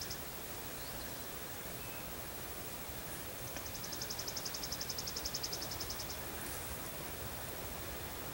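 A small songbird's rapid dry trill: one high, even note repeated about ten times a second for about two and a half seconds, starting about three and a half seconds in, over a steady outdoor hiss.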